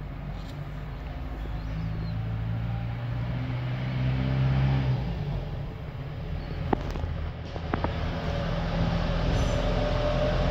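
A motor vehicle engine running close by, a low hum that swells, fades and swells again. Two sharp clicks come about two-thirds of the way through.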